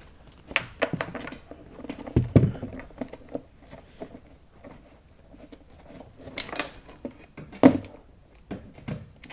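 Scattered light clicks and knocks from handling a cordless impact driver and bolt hardware. There is a dull thump about two seconds in and a sharper knock near the end.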